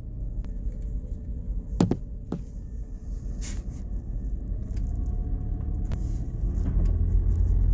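Car cabin road noise while driving slowly on a wet road: a steady low rumble of engine and tyres that grows louder near the end, with a few sharp clicks, the strongest about two seconds in.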